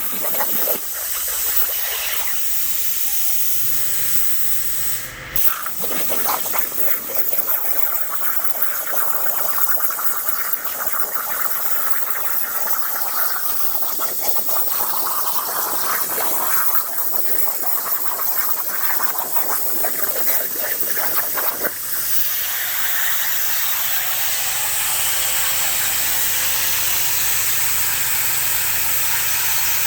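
CNC plasma cutter's torch cutting metal plate: a continuous hiss and crackle of the arc and its air. It breaks briefly about five seconds in, and about 22 seconds in it turns to a smoother, steadier hiss with a low hum.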